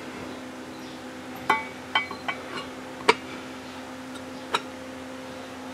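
About five sharp metallic clinks and taps, a few with a brief ring, as the turbocharger's metal impeller housing is handled and seated onto the center section. A steady low hum runs underneath.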